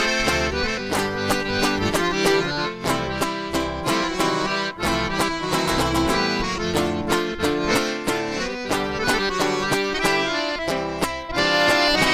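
Instrumental interlude of a sertanejo song: accordion playing the melody over a plucked string accompaniment with a steady rhythm.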